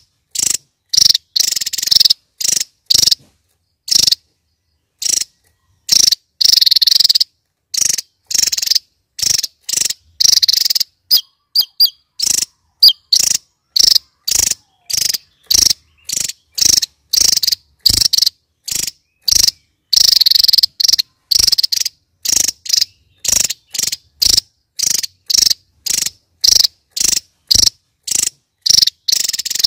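Javan tesia singing its rapid 'nembak' song: a long run of short high-pitched notes, about two a second, some drawn out longer, with a few brief thin gliding notes about halfway through.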